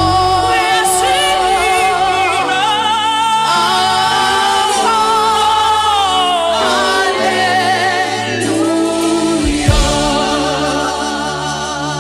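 Gospel worship singing: sustained melismatic vocal lines with heavy vibrato over held keyboard chords and bass.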